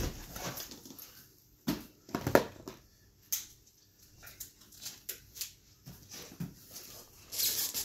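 Large taped cardboard shipping boxes being shifted and stacked by hand: a few dull knocks and scrapes, the loudest about two seconds in.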